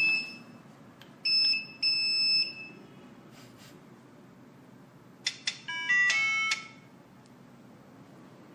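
Alarm buzzer giving three short high beeps of one steady pitch, set off by the panic button. About five seconds in, a mobile phone plays a short melodic text-message alert, the SMS sent by the GSM module arriving.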